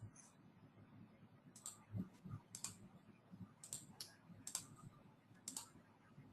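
Faint, irregular clicking at a computer: about eight light clicks spread over a few seconds, the sound of keys or a mouse being worked.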